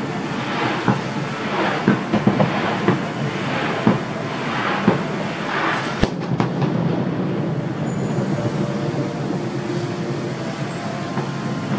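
Aerial fireworks going off at a distance: a continuous rumble with sharp bangs and hissing crackle about once a second, then mostly the rumble after a last sharp crack about halfway through.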